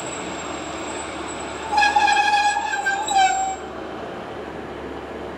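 Diesel multiple-unit train horn sounding one blast of about two seconds that drops to a lower note near the end, over the steady running noise of the train.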